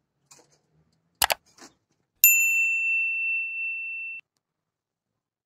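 Subscribe-button sound effect: a quick double mouse click, then a single notification-bell ding that rings for about two seconds and cuts off abruptly.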